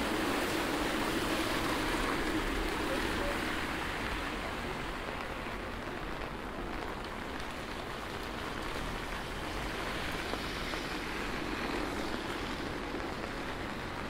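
Steady rain falling on a city street, with the rumble of a passing vehicle fading away over the first few seconds.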